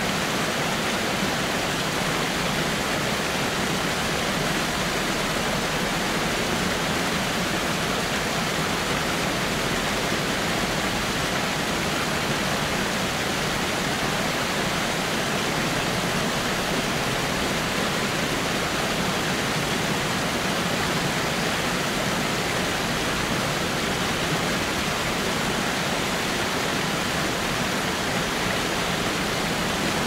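Large waterfall plunging onto rocks and into the white-water torrent below, a steady, even rush of falling water.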